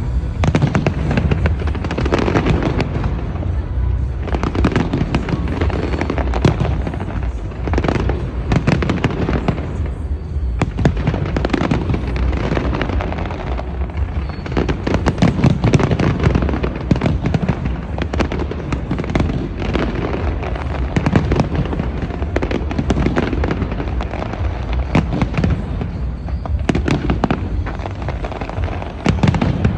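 Large fireworks display: a dense, continuous barrage of bangs and crackles over a deep rumble of booms, easing off briefly a few times.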